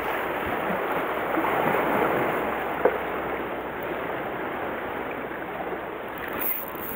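Steady wash of sea waves and wind, an even rushing noise, with one brief tap about three seconds in.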